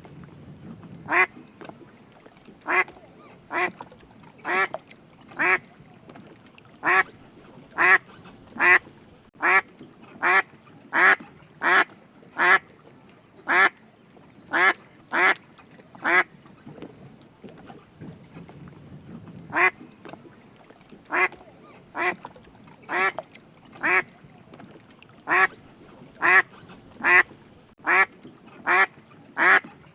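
A duck quacking over and over, single short quacks about one a second, with a pause of a few seconds about two-thirds of the way through the first half.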